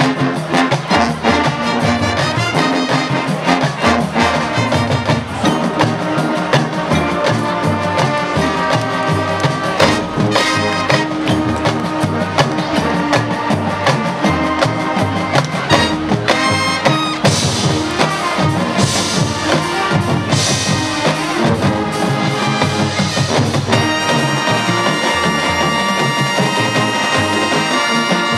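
High school marching band playing its field show: brass section with drums and percussion.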